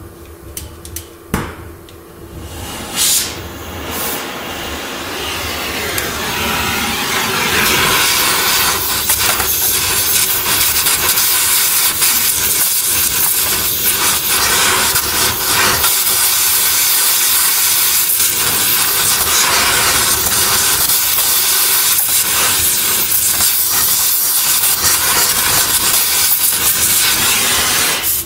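Gas torch burning with a loud, steady hiss as it heats a bent chassis frame rail during chain-pull straightening. A few sharp knocks in the first seconds, then the hiss builds and holds until it cuts off suddenly at the end.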